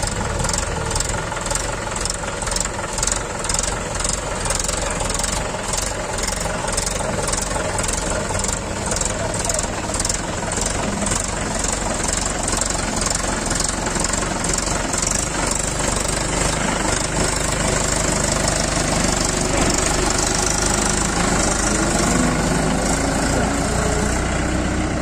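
Diesel engine idling steadily, with an evenly repeating high hiss of about two pulses a second through the first half.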